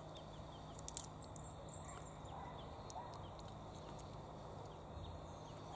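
Faint outdoor background with small birds chirping: many short, high, falling chirps scattered throughout, and a couple of soft clicks about a second in.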